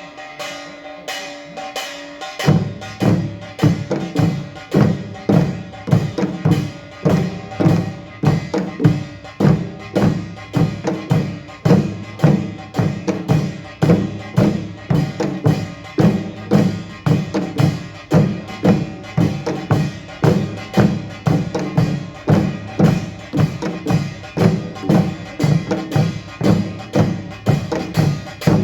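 Korean pungmul percussion ensemble playing: ringing small gongs start suddenly, and about two and a half seconds in the drums come in, driving a steady, even beat.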